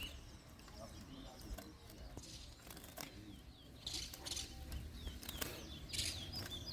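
Caged towa-towa seed finches giving short, faint chirps now and then, with scattered soft clicks and brief flutters. The chirps grow more frequent near the end.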